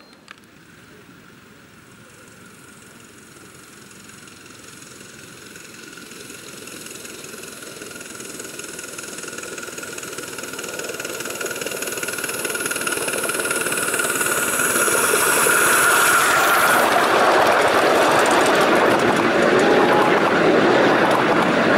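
7¼ inch gauge model steam locomotive, GWR King class No. 6010 King Charles I, running on its track with its train. It grows steadily louder over about sixteen seconds, with a steady ringing tone over the rumble. From about sixteen seconds in it is loud and steady as it runs past.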